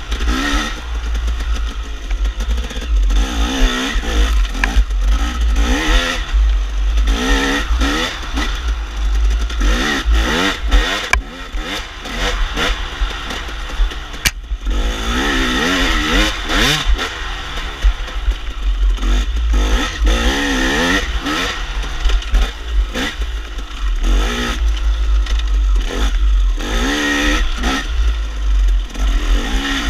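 KTM enduro dirt bike engine, revved up and down again and again as the rider works the throttle through tight trail corners. Wind buffets the on-board camera microphone.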